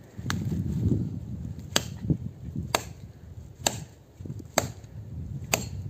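Bellota axe chopping a fallen pine branch on the ground, about six sharp blows roughly a second apart.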